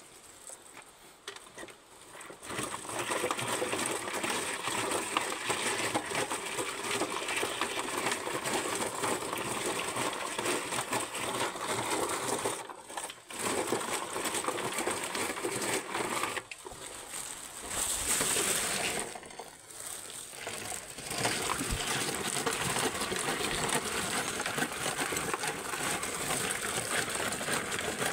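Hand-cranked manual coffee pulper working through ripe coffee cherries and water: a steady rattling clatter of cherries and beans through the metal machine, starting about two seconds in, with a few brief pauses midway.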